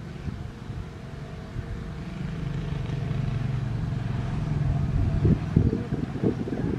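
Diesel locomotive engine droning steadily as the train approaches, growing louder. Wind buffets the microphone with gusty low thumps near the end.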